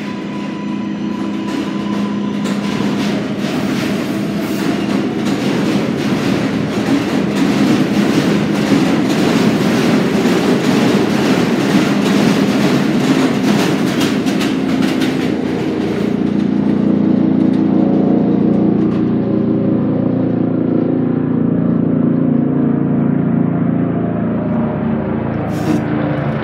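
An R143 subway train pulls out and passes close by. A steady motor whine gives way to loud rapid clicking and clattering of wheels over rail joints for about thirteen seconds. A steady droning hum with several held tones takes over in the second half as the train runs off.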